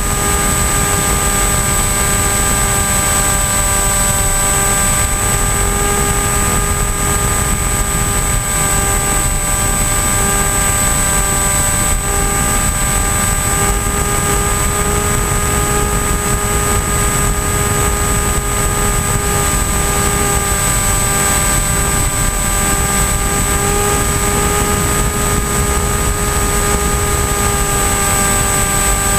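Electric motor and pusher propeller of an AXN Floater-Jet RC foam plane in flight, heard from a camera on the airframe: a steady whine with even overtones and a thin high tone, over rumbling wind noise.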